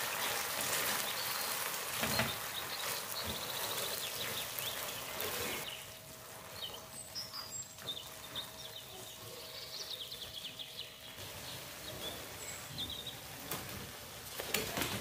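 Sweet and sour sauce with onion, chilli and tomato sizzling in a frying pan as a spatula stirs it. About six seconds in, the sizzle drops to a quieter simmer with scattered small pops. Near the end raw prawns are tipped into the pan with a few sharp knocks.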